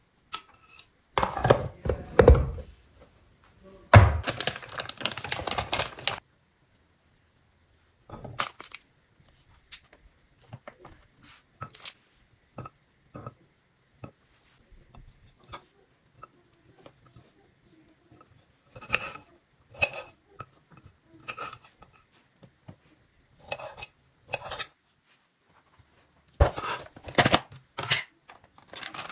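A kitchen knife cutting cheese and knocking against a ceramic plate and plastic containers: scattered clicks and clinks, with louder clattering runs about a second in, from about four to six seconds, and near the end.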